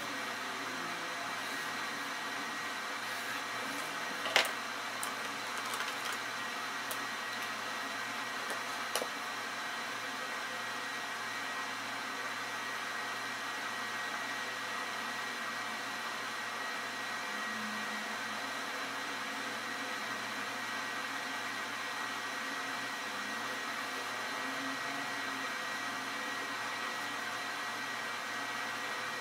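Steady background hiss with a faint high whine, and two light clicks about four and nine seconds in.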